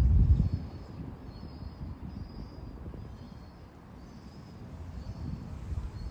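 Outdoor street ambience from a handheld phone: an irregular low rumble of wind on the microphone, strongest in the first half second, then steadier. A faint high chirp repeats about once a second.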